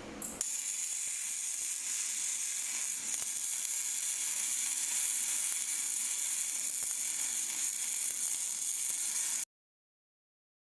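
Gasless flux-cored semi-automatic (MIG) welding arc, crackling and sizzling steadily, which stops abruptly near the end.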